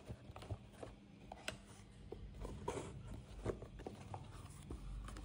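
Faint rustling and scattered light clicks from the keyboard's packaging being handled as its contents are taken out.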